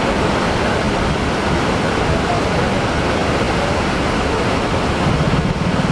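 Heavy sea surf: waves breaking in a steady, even rush of noise. A low hum joins near the end.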